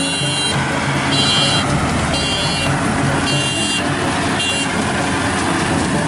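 Maxxi Bimo 102 combine harvester's engine running steadily while harvesting, with a high beeping sounding five times, about once a second, over the first four and a half seconds.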